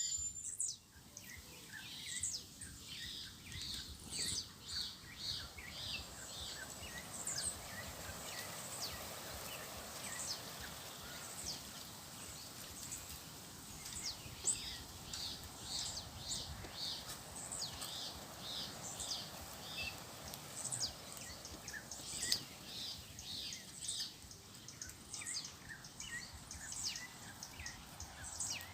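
Red-cowled cardinals chirping: many short, high notes in quick repeated series, over a steady faint background hiss.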